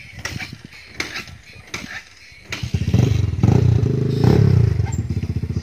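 A motorcycle engine running close by, starting about halfway and revving up and down. Before it, a few scattered knocks and clicks.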